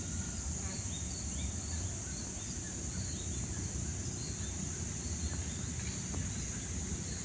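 Steady, high-pitched insect chorus with a few faint chirps over it, above a constant low rumbling noise.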